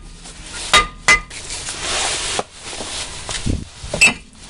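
Hammer taps on a Jeep Cherokee's front brake rotor to knock it loose where it is stuck on the hub: two ringing metallic strikes about a second in, then a stretch of rough noise and one more knock near the end.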